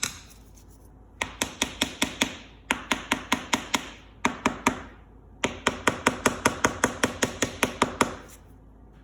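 A hand tool working a hole and screw into the resin pattern bedded in the casting sand, giving rapid, evenly spaced sharp clicks, about six a second. The clicks come in four runs of one to two and a half seconds with short pauses between them.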